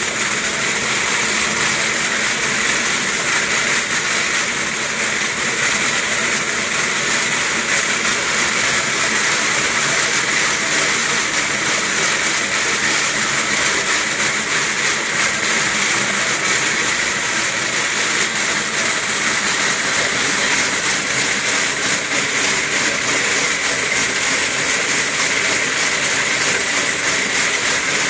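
Wooden slats of a dog slat mill rattling steadily as a dog runs on it, a fast, even clatter with no break.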